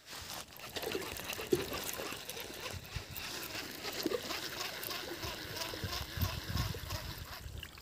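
Water sloshing and trickling in irregular splashes.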